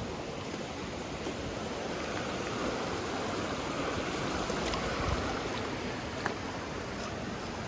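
Mountain stream water rushing steadily over rocks, with a few faint clicks.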